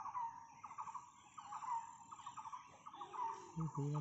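A bird calling over and over, less than a second apart: each call is a quick rattle of notes ending in a short note. A thin, steady high whine runs underneath, and a low voice is heard briefly near the end.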